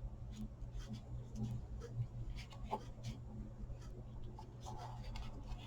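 Faint rustling and small scattered ticks of hands handling paper and twine, tying a bow on a paper tag, over a low steady hum.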